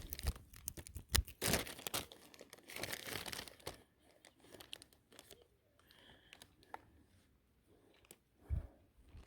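Irregular rustling and crinkling handling noise, close to the microphone, loudest in the first few seconds and then fading to scattered ticks, with one low thump near the end.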